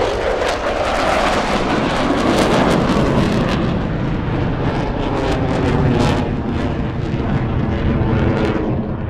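Eurofighter Typhoon's twin jet engines, loud and continuous with a rapid crackle, as the jet flies its display and climbs away; the sound eases a little near the end.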